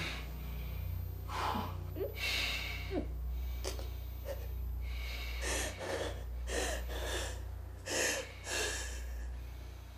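A person's heavy, ragged breathing and gasps, in uneven bursts about once a second, over a faint steady low hum.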